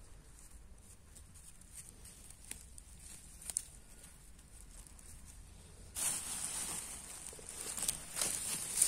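Rustling, tearing and snapping of leafy wild greens being picked by hand. Faint scattered clicks at first, then louder rustling and crackling from about six seconds in.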